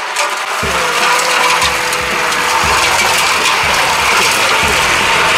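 Gas-powered Legend Force walk-behind string trimmer running as it is pushed through grass. Low rumble and a louder noise come in about half a second in, as the microphone is carried close alongside.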